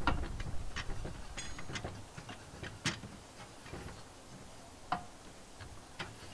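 Irregular light metallic clicks and taps as small hand tools and a brass gas-line fitting are handled on a metal grill tray. One click about five seconds in rings briefly.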